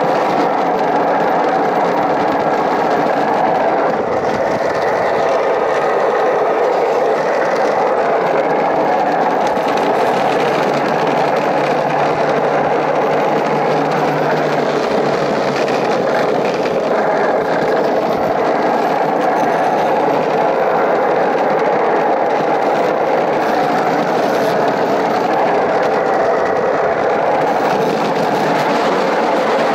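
Gravity-driven luge cart rolling fast down a concrete track: a steady, unbroken rumbling rattle of its wheels on the surface.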